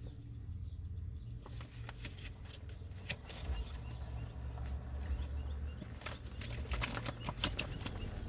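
Faint rustling and scattered light clicks, as of something being handled, over a low steady hum; the clicks come thicker a little past the middle.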